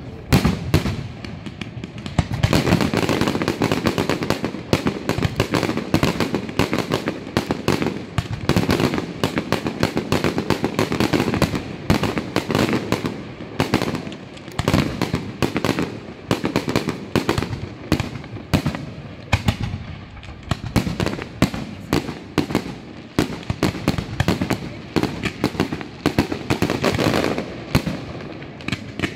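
Fireworks display: aerial shells bursting in quick succession, a dense, unbroken barrage of bangs.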